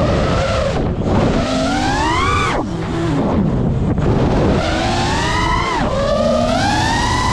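FPV quadcopter's brushless motors whining as the throttle is worked. The pitch climbs and drops sharply twice, once about two and a half seconds in and again near six seconds, then starts climbing again, over a steady rushing noise.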